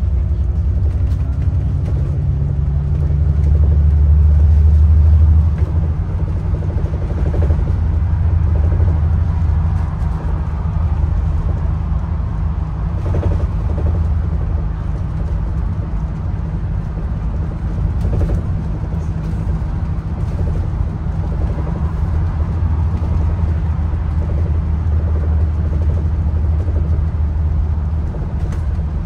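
Engine and road noise of a moving bus heard from inside the passenger cabin: a steady low rumble that grows louder for a couple of seconds early on, with a few faint rattles or knocks around the middle.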